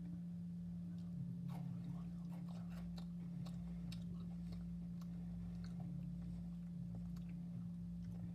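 Close-up chewing of a Kit Kat chocolate-covered wafer bar: irregular small crunches and clicks, thickest in the first half, over a steady low hum.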